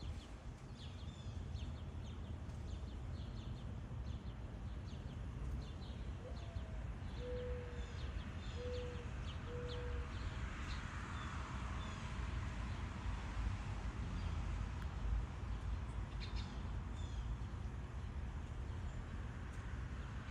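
Wild birds calling outdoors: scattered short, high chirps, and about a third of the way in a low call of four hooting notes, the first rising and the next three short and even. All over a steady low rumble of outdoor background noise.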